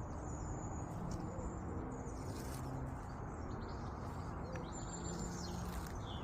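Several small birds chirping and trilling in short, high calls, over a steady low background rumble.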